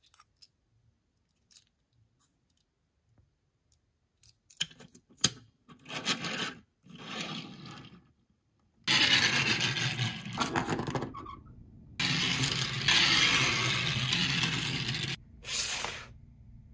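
Toy packaging being opened by hand: a few light clicks and taps, then scraping and tearing noise in several stretches of one to three seconds. The longest and loudest stretches come in the second half.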